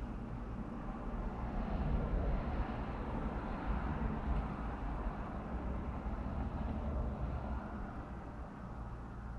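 Vehicle engine idling, a steady low rumble heard from inside the cabin, with a broader noise swelling a couple of seconds in and easing off toward the end.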